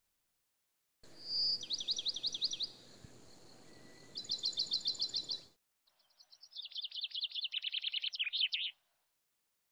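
Songbird singing: three quick runs of sharp, down-slurred high chirps, each lasting a second or two, starting about a second in.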